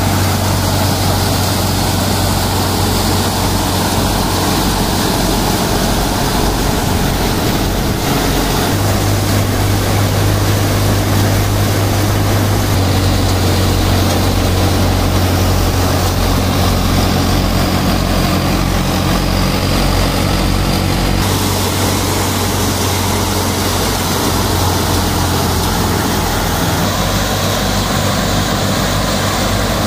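Kubota MU5501 tractor's four-cylinder diesel engine running steadily under load, driving an MM Punni multi-crop thresher as it threshes. It makes a loud, continuous drone with a deep hum. The drone shifts abruptly in tone a few times.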